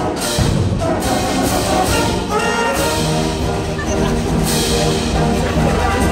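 School symphonic band playing, with brass in the lead. A few sharp percussion hits in the first second give way to held brass chords that shift every second or so over the low brass.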